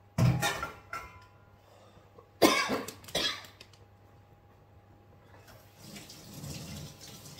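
A man coughs hard twice, about two seconds apart, each cough followed by a smaller one. About five and a half seconds in, the kitchen mixer tap is turned on and water runs steadily into the sink.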